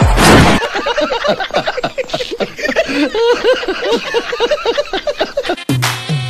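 A loud burst of noise at the start, then several men laughing heartily in rapid ha-ha bursts for about five seconds. Near the end, music with a repeating bass beat cuts in.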